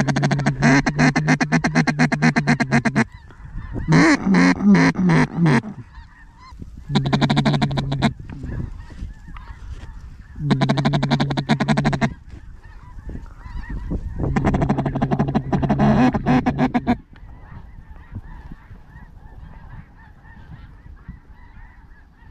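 Loud, raspy goose-like honking in five bursts of one to three seconds, mostly on one low pitch. The second burst wavers up and down in pitch. Fainter calling carries on between the bursts.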